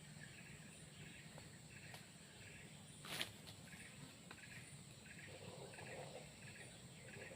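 Faint outdoor ambience: a chirp repeating roughly twice a second over a steady high buzz, with one sharp click about three seconds in.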